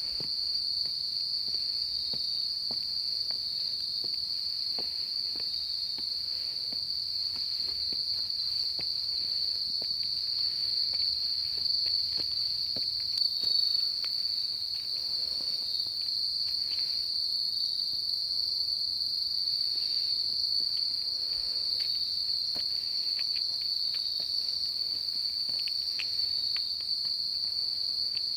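Insects calling in a loud, steady, high-pitched trill that never breaks.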